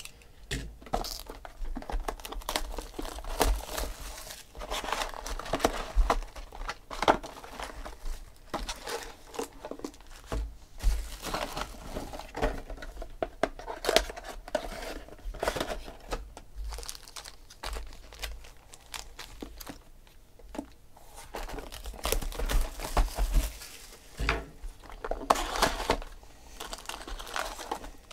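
Cardboard boxes of 2016 Panini Select football cards being opened and their foil packs handled: irregular crinkling, rustling and tearing of wrappers and card stock, with small clicks and taps.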